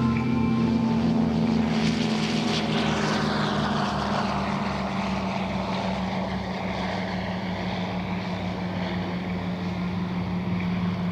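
Twin radial engines of the Douglas C-47 Whiskey 7 running at full power on the takeoff roll, a steady deep drone. About two seconds in, a rush of propeller noise passes and falls in pitch.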